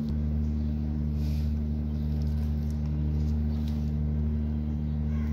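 A steady low machine hum made of several fixed low tones, running unchanged throughout.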